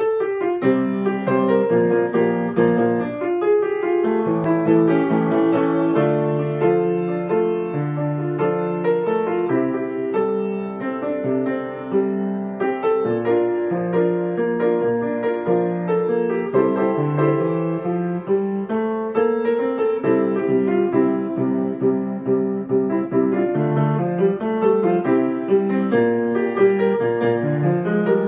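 Background piano music: a steady, flowing run of notes and chords.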